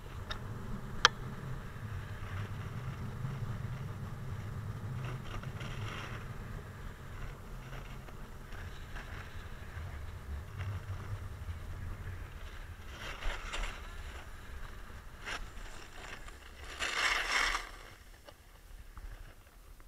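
Snowboard running over packed snow, heard from a camera on a selfie stick: a steady low rumble, a sharp click about a second in, and short hissing scrapes of the board's edge on the snow in the second half, the loudest a couple of seconds before the end, after which it goes quieter.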